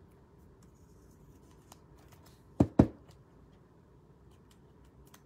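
A trading card being slid into a clear rigid plastic toploader by hand: faint rustling and small plastic ticks, with two sharp knocks in quick succession a little past the middle.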